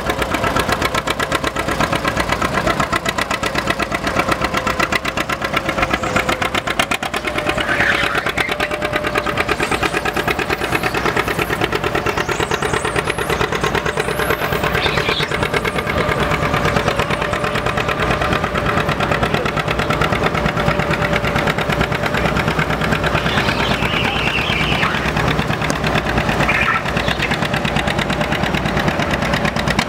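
Antique farm tractor engines running steadily: a John Deere 620 two-cylinder engine pulling a weight-transfer sled, then a red tractor's engine as it is hooked to the sled.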